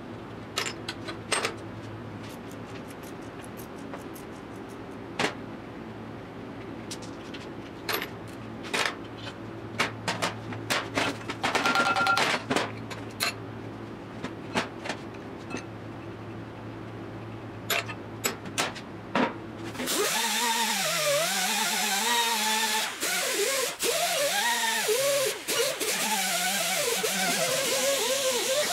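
Wrenches and steel suspension parts clinking and knocking on a metal workbench over a steady low hum, with a louder ringing rattle near the middle. About two-thirds of the way through, background music with a wavering melody cuts in abruptly and takes over.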